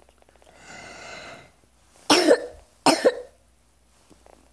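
A drawn-out, labored breath, then two loud, harsh coughs in quick succession about two and three seconds in, part of a bout of coughing with difficulty breathing.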